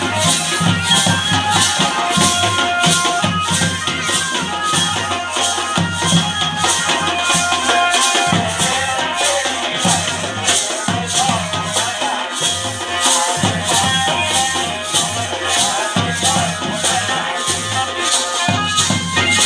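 Pahari folk music with a steady beat: a rattling shaker-like percussion keeping an even pulse, low drum strikes, and melodic lines above.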